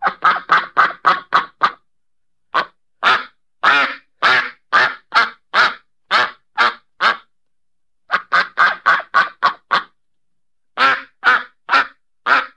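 Duck quacking in runs of short, rapid quacks, about four a second in the first run, with brief silent pauses between the runs.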